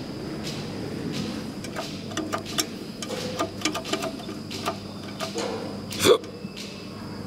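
A run of light irregular clicks and knocks as a finger works the metal call button on an old elevator's stainless landing panel. About six seconds in comes one sharper, louder click. A steady high tone runs underneath.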